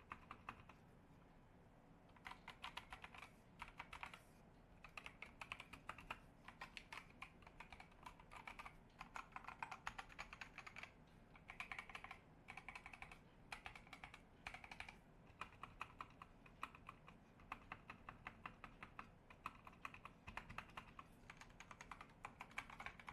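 Typing on a K68BT mechanical keyboard with red (linear) switches: fairly faint, rapid keystrokes in runs of a second or two, with short pauses between them.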